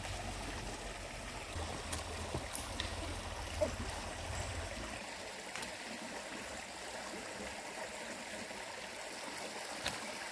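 Steady rush of a shallow stream over rocks, with a few short sharp clicks scattered through it, the clearest about three and a half seconds in.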